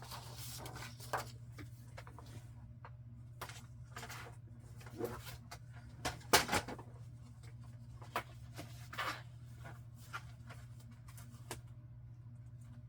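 Paper being handled: scattered short rustles and light taps, the loudest a little after six seconds, over a steady low hum.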